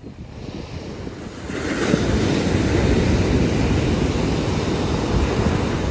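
Ocean surf breaking on a sandy beach, a steady roar of noise that swells loud about a second and a half in and keeps going.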